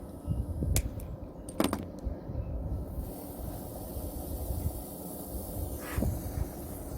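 Two sharp clicks and some handling knocks, then about three seconds in a steady hiss starts up, typical of a water-fuelled oxyhydrogen welding torch running.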